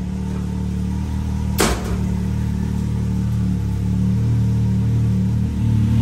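Can-Am X3 side-by-side's engine idling steadily, with one sharp knock about one and a half seconds in.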